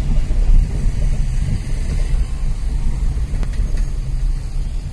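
Low, steady rumble of a car's engine and road noise heard from inside the cabin in slow-moving traffic.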